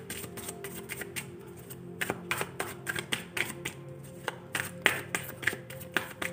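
Deck of tarot cards being shuffled by hand, a run of quick, irregular card clicks and flicks, over soft steady background music.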